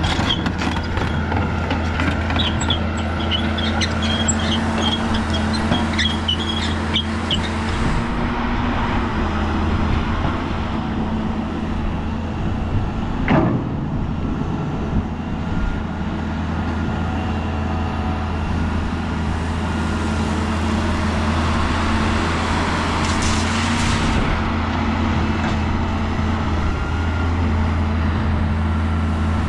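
Heavy earthmoving machine's diesel engine running steadily, with clinks and rattles of metal in the first several seconds, a short squeal about 13 seconds in and a brief hiss a little over 20 seconds in.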